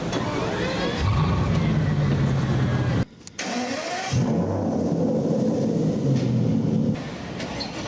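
Car engine running with a steady low note that cuts off abruptly about three seconds in; after a brief drop another car engine fires up with a short rising whine and settles into a steady idle.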